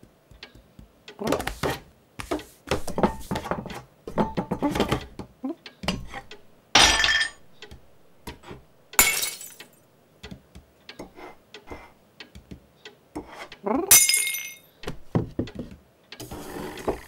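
Cartoon sound effects of a cat among mantelpiece ornaments: small knocks and clinks as things are nudged along the shelf, broken by three loud crashes of shattering glass and china as ornaments fall off, a few seconds apart.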